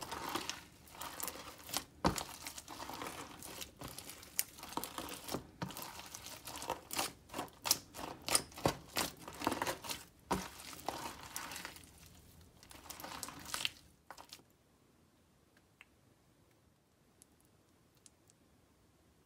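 Chunky, stringy slime being kneaded and stretched by hand: dense, irregular crackling, popping and sticky tearing sounds. About fourteen seconds in this stops, leaving a faint near-silence with a few soft ticks.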